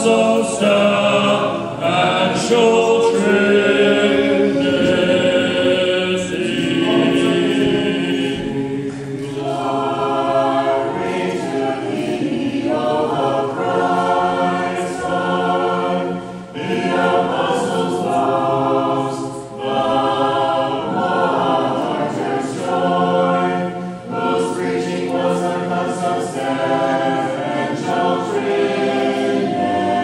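Orthodox church choir singing a hymn a cappella, several voices in harmony, with brief breaks between phrases.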